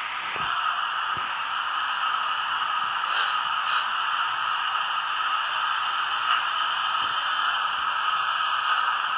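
Steady hiss of static-like noise, with a couple of faint knocks in the first second or so.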